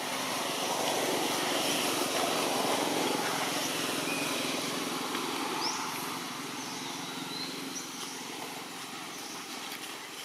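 Steady engine noise, like a passing motor vehicle, that swells over the first few seconds and then slowly fades. A few faint, short, high bird chirps can be heard over it.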